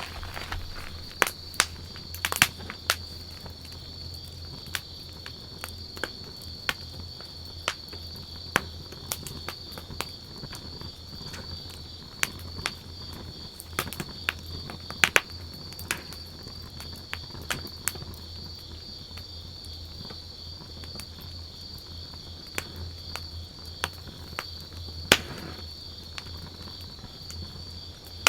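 Wood campfire crackling, with irregular sharp pops and snaps, over a steady high insect trill.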